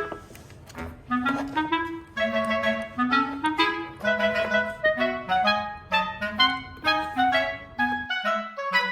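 Light, bouncy background music led by a clarinet playing short staccato notes in a steady rhythm.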